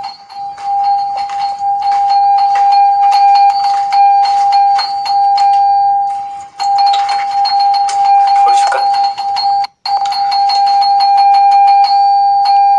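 Hotel room doorbell ringing on and on as one steady high tone, cut off briefly twice and pressed again, so the caller is insistent at the door. Short clicks and knocks sound over it.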